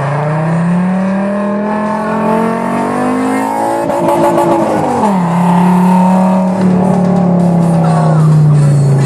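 Fiat Marea 2.4 20V five-cylinder engine breathing through a 5-into-1 exhaust header, pulling under acceleration: the exhaust note climbs steadily, drops sharply about five seconds in, holds, then eases lower near the end.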